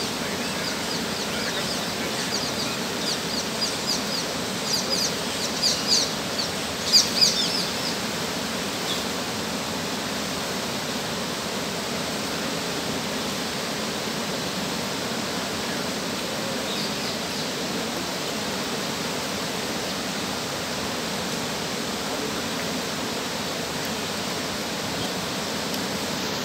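Floodwater rushing steadily through the broken sluice shutters of a river barrage. A bird chirps repeatedly over the first several seconds.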